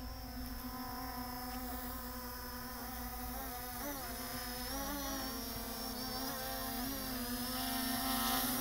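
JJPRO X3 HAX quadcopter flying low, its four propellers giving a steady buzzing whine that wavers in pitch several times in the middle as the motors change speed.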